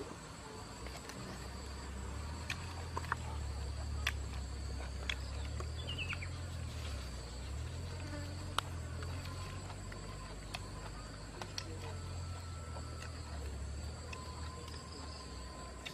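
Steady high-pitched drone of forest insects, with a low rumble underneath and scattered small clicks and crackles.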